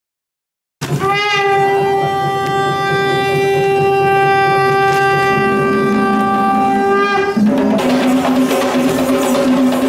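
A conch shell blown in one long, steady note lasting about six and a half seconds, rising slightly in pitch as it starts. Traditional Sri Lankan drumming then starts up under a lower held tone.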